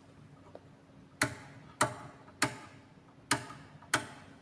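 Five sharp clicks spaced a little over half a second apart: the rotary knob of a decade resistance box stepping through its detents as it is set to 500 ohms.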